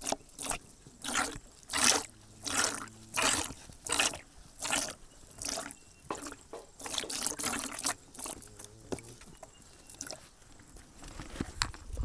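Cow being milked by hand: rhythmic squirts of milk hitting a container, about one every 0.7 seconds, turning quicker and fainter after the first six seconds.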